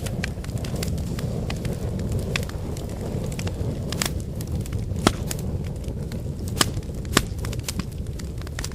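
Wood campfire burning: a steady low rumble of flames with frequent sharp crackles and pops, three louder snaps standing out about five, six and a half and seven seconds in.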